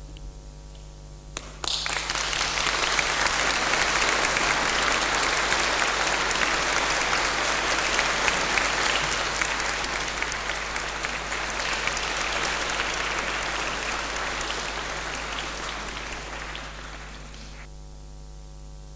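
Concert audience applauding. The applause starts abruptly about a second and a half in, holds steady, and dies away near the end, leaving only a low steady hum.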